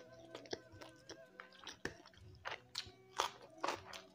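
Close-miked mukbang eating: wet chewing with several crisp crunches in the second half, from raw bok choy and other fresh greens being bitten and chewed.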